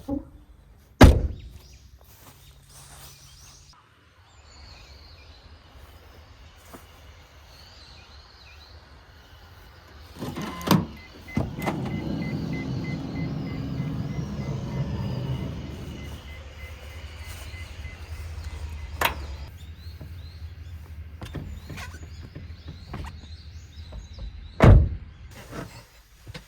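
Sounds of a small car being worked from inside: a few sharp thunks, with the loudest about a second in and near the end, and a steady low hum. In the middle an electric motor runs for about four seconds, like a power window moving.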